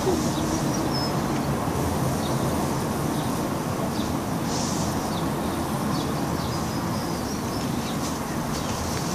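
Steady rushing background noise, with faint, scattered high bird chirps over it.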